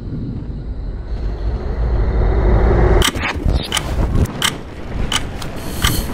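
Cinematic sound-design track: a deep rumble swells over the first three seconds, then sharp clicks strike at a steady pace, about one every 0.7 seconds.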